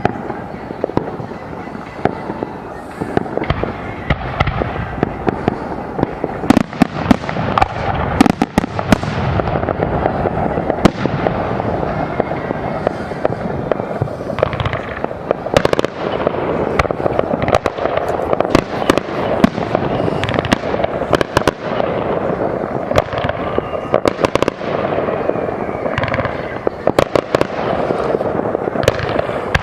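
Fireworks display: a continuous barrage of shell bursts and crackling, with sharp bangs coming thick and fast from about six seconds in.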